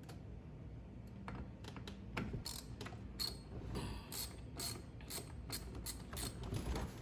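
Hand ratchet with a T27 Torx socket clicking as it backs out the steering wheel retaining bolts: a few scattered clicks at first, then steady ratcheting at about four clicks a second from about two seconds in.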